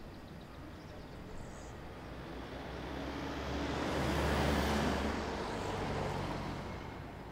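A car driving past on the street, its engine and tyre noise swelling to a peak about four to five seconds in and then fading away, over a low steady traffic rumble.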